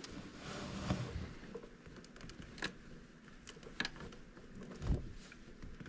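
A flathead screwdriver prying an old shifter bushing out of its shift linkage mount: faint scraping with a few small clicks about a second apart as the bushing works slowly loose.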